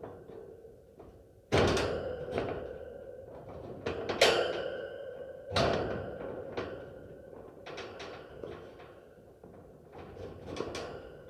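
Metal cage door clanking: four hard metallic clanks with a ringing tail in the first six seconds, the loudest about four seconds in, then lighter rattles and clicks of the bars and latch.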